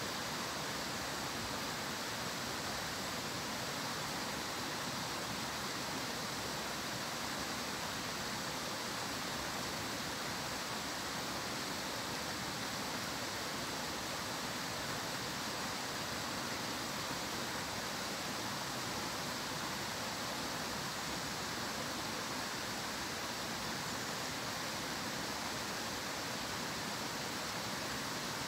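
Steady rushing of a stream, an even hiss of flowing water that does not change.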